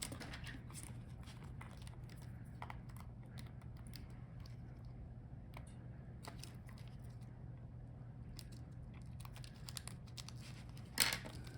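Light scattered clicks and crinkling of small laptop parts being handled as a speaker cable is worked free from under its metal shields and other cables, over a steady low hum. A sharper, louder click comes near the end.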